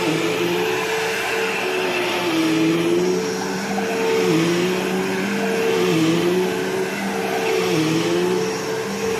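Bissell PowerForce bagless vacuum cleaner's motor running steadily, its hum dipping briefly in pitch every couple of seconds.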